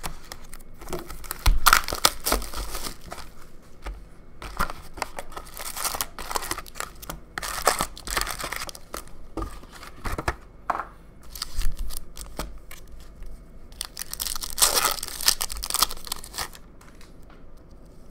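Plastic wrapping and foil card packs being ripped and crinkled as a box of hockey cards is opened, in repeated bursts of tearing. The loudest rips come about two seconds in and again near the end.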